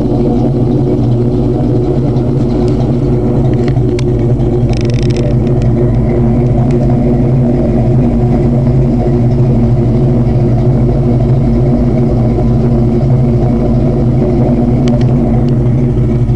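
1997 Mustang GT's 4.6 L SOHC V8 (2000 PI engine) with Comp XE262AH cams idling steadily through an off-road X-pipe with no catalytic converters and Flowmaster mufflers, heard at the exhaust from under the car. A few faint clicks and a short hiss come about four to five seconds in.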